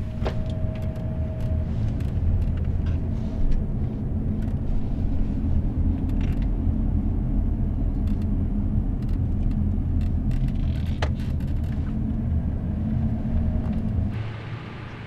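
Car engine and road noise heard from inside the cabin while driving: a steady low rumble that drops away near the end.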